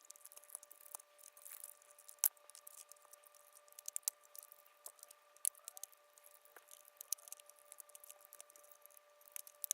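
Small, sharp clicks and scrapes of plastic wire connectors being worked loose and pulled from a robot vacuum's circuit board, coming irregularly throughout.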